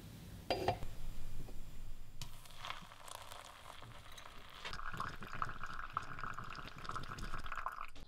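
Hot water poured from a kettle onto ground coffee in a paper pour-over filter: a steady trickling splash that stops just before the end. A single light knock about half a second in.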